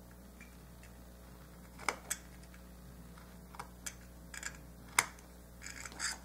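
Craft blade clicking against a hard work surface as thin slices are cut from a small piece of polymer clay: scattered sharp clicks, the loudest about five seconds in, with a short rustle near the end. A faint steady hum underneath.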